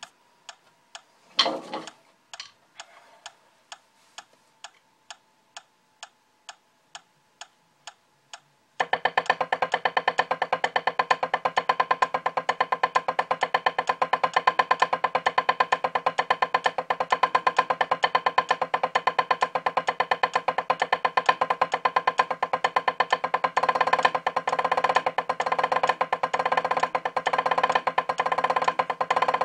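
A metronome clicking evenly about twice a second, with one louder knock about a second and a half in. From about nine seconds in, drumsticks play fast, continuous strokes on a drum practice pad over the clicks.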